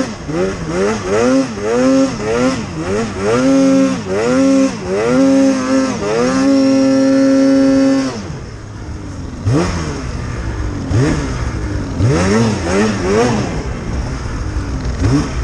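Polaris Pro-RMK 800 snowmobile's two-stroke engine revving in quick repeated throttle blips and held at high revs as the sled is ridden through deep powder. About eight seconds in it drops to lower revs, followed by a few lighter blips.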